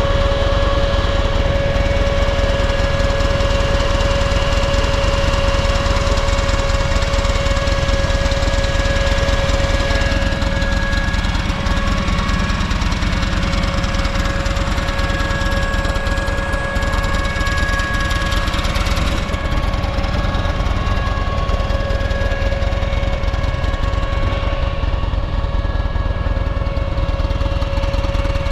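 Buell XB12SS Lightning's air-cooled V-twin engine idling steadily, with no revving. The seller presents it as running without abnormal noises.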